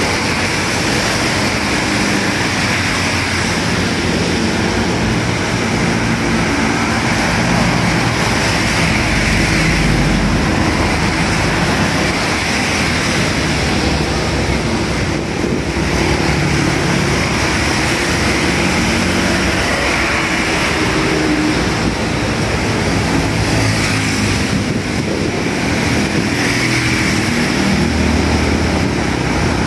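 Road traffic of motorcycles and cars passing on rain-soaked asphalt: engines humming and tyres hissing through the water, swelling every few seconds as vehicles go by, over a steady hiss of falling rain.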